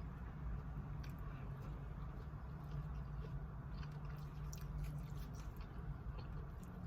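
A person chewing food close to the microphone, with many small wet mouth clicks over a steady low hum.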